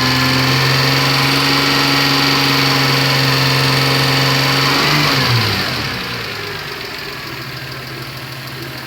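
Toyota Camry engine held at a raised, steady speed, then let go about five seconds in: the pitch slides down and it settles to a quieter idle.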